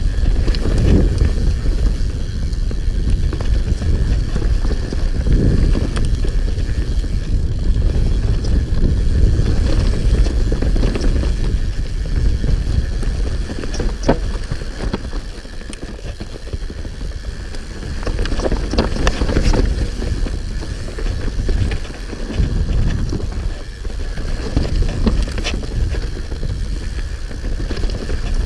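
Hope HB160 full-suspension mountain bike riding down a forest singletrack: a steady low rumble of wind on the camera microphone and tyres rolling over dirt and roots, with scattered sharp clicks and rattles from the bike over bumps. The rumble eases for a few seconds around the middle.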